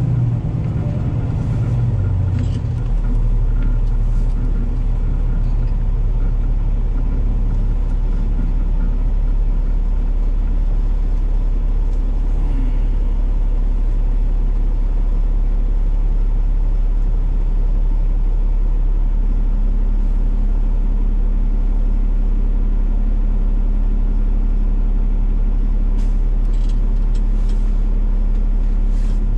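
Peterbilt 389 truck's Cummins ISX15 diesel engine running with a deep, steady hum. Its pitch shifts in the first few seconds and then holds. A higher steady tone joins about two-thirds of the way through.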